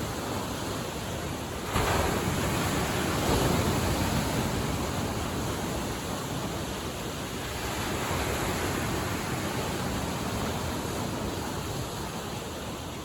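Lake Michigan waves breaking and washing on the shore: a steady rush that swells suddenly about two seconds in, again a second or so later and around eight seconds, then eases off.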